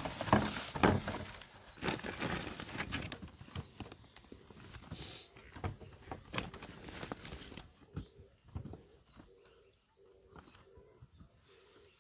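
Irregular knocks and rustles, thick at first and sparser later. A small bird chirps briefly every second or two.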